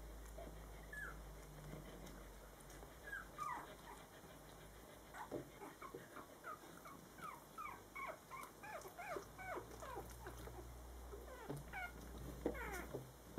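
Litter of 17-day-old puppies squeaking and whimpering: many short, high squeaks that fall in pitch, a few at first, then coming thick and fast from about halfway through.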